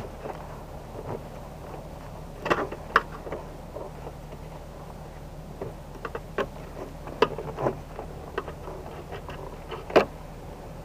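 Rubber wiring boot being worked back into its hole in a car's hatch with a screwdriver: scattered clicks and taps of the tool and rubber against the hatch, the loudest about three seconds in and near the end, over a steady low hum.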